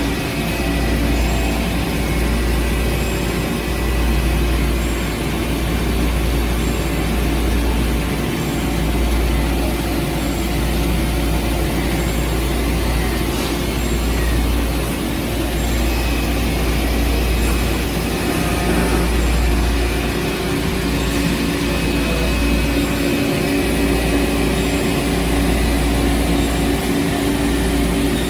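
Tsugami SS327-5AX CNC Swiss-type lathe running a cutting cycle with coolant flowing, heard as steady machine-shop running noise with a low rumble.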